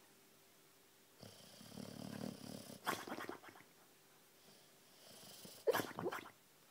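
Sleeping boxer dog snoring and making sounds as it dreams: a low snoring breath, a short snort about three seconds in, then two short, muffled barks close together near the end.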